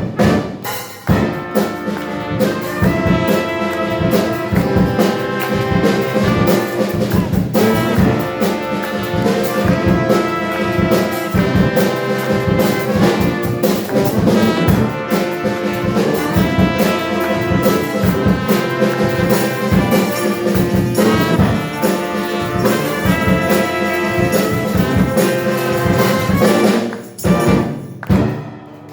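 Instrumental break of a pop song, with brass playing the melody over an orchestral backing with a steady beat.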